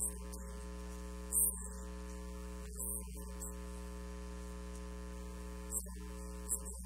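Steady electrical mains hum, a low buzz with several overtones, broken by a few brief high hissing bursts about 1.5, 3 and 6 seconds in.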